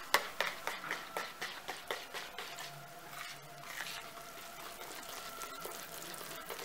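Wire whisk stirring flour into a wet yeast batter in a plastic bowl. The wires tick against the bowl in quick strokes for the first couple of seconds, then give way to a softer, steadier swishing as the flour wets through.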